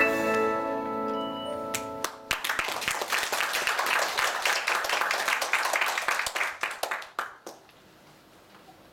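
The choir and band's final held chord rings out and stops about two seconds in, then the audience applauds, dying away about seven and a half seconds in.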